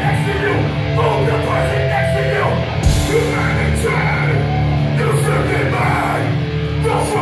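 Hardcore punk band playing live: distorted electric guitars and bass over pounding drums and cymbal crashes, with the vocalist shouting into the microphone.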